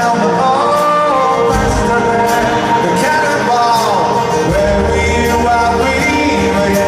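Live rock band playing a slow anthem with sung vocals over guitars and drums, recorded from within the audience.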